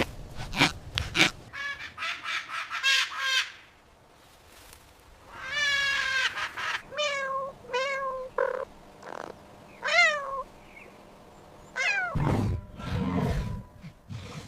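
A series of short, high-pitched animal calls, some quick and repeated and some sliding up and down, after a few sharp clicks. Near the end a low, heavy growling call begins.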